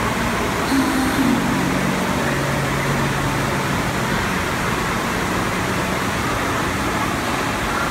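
Steady rushing of water pumped in a thin sheet up the slope of an indoor standing-wave surf machine, with a faint low steady hum beneath it.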